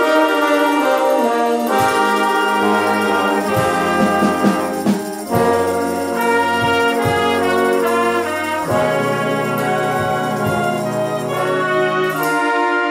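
Wind band playing, with brass and clarinets holding sustained chords that move from note to note.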